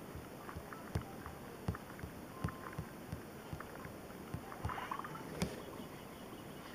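Fingertip taps on a phone's touchscreen, irregular soft thumps, with short beeps and a brief chirping sound effect about five seconds in from the Littlest Pet Shop phone game's speaker.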